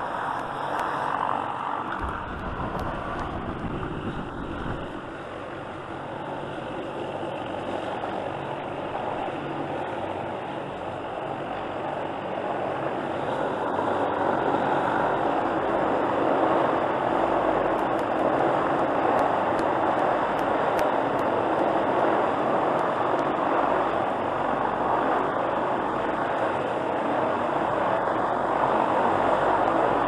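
Helicopter hovering and working close by, a steady loud rushing din of rotor and turbine that grows louder partway through.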